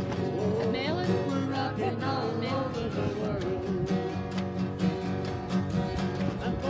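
A steel-string acoustic guitar strummed live in a steady rhythm, with a man's voice singing along over the first few seconds.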